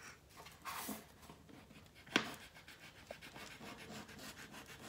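X-Acto knife blade shaving the excess ridge off the rim of a still-pliable epoxy resin bangle: a short scraping rasp just under a second in, a sharp click a little past two seconds, then quick, repeated small scraping strokes near the end.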